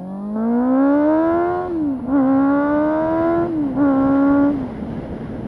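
Honda CB400 inline-four with an IXIL aftermarket exhaust accelerating hard through the gears. The engine pitch climbs, dips at an upshift about two seconds in, climbs again, shifts once more around three and a half seconds, then the throttle closes near the end, leaving wind rush.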